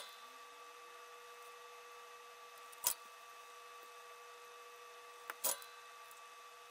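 Small hand tools being picked up and set down on a workbench: three sharp clicks, at the start, about three seconds in and about five and a half seconds in, over a faint steady electrical hum.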